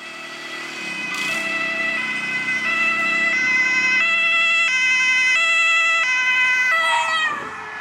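German police car's two-tone siren (Martinshorn) alternating between its high and low notes, switching about every two-thirds of a second and getting louder as the car approaches. Near the end the tones slide down in pitch as the car goes by.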